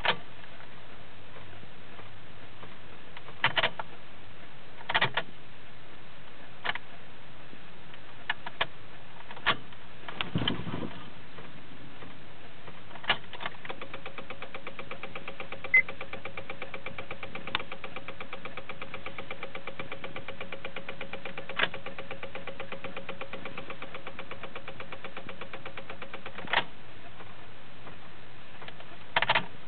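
Clicking from a 2006 Honda Civic that won't start as the key is tried: a few separate clicks, then from about halfway a rapid, even clicking that runs for some thirteen seconds with a faint steady tone under it, and stops suddenly.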